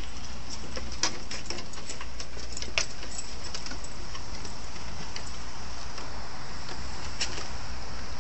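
Steady outdoor background hiss with a few faint, sharp clicks from a Kerry Blue Terrier moving about on a wooden deck.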